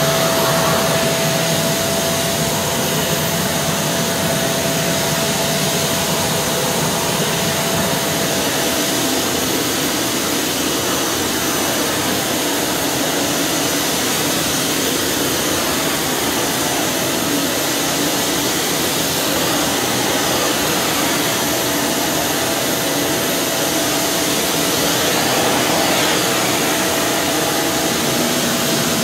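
Kärcher WD 5 wet-and-dry vacuum cleaner running steadily, its motor giving a constant rushing noise with a thin, steady whine.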